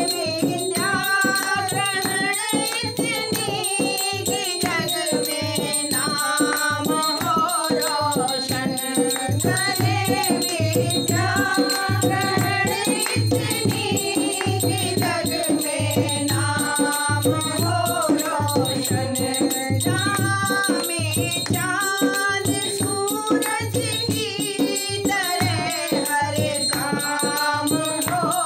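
Women singing a Hindi birthday badhai folk song together, accompanied by a steady rattling hand percussion.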